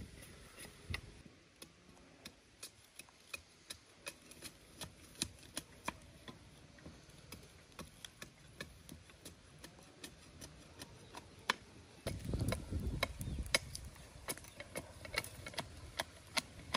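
A run of light, sharp taps or clicks, irregular at about two or three a second, with a low rumble joining in about three quarters of the way through.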